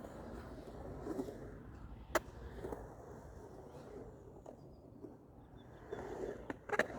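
Skateboard wheels rolling over pavement, a steady rumble that eases off a little in the middle, with a sharp click about two seconds in and two more near the end.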